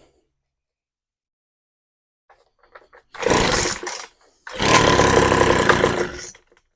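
Poulan Pro leaf blower's two-stroke engine pull-started on choke, catching twice: a short burst of about a second, then a run of about two seconds that cuts off suddenly. It is the engine's first firing after a carburettor rebuild.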